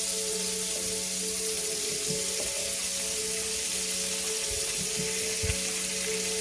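Chicken pieces frying in hot olive oil in a pot: a steady, dense sizzle, the oil bubbling and foaming around the moist meat. A steady low hum runs underneath, with a couple of soft knocks about two-thirds of the way in.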